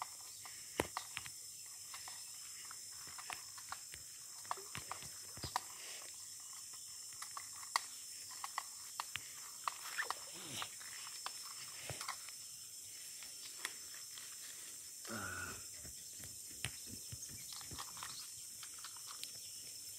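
Quiet rustling and scattered light clicks of someone moving and handling gear in tall grass, with one short rough noise about fifteen seconds in.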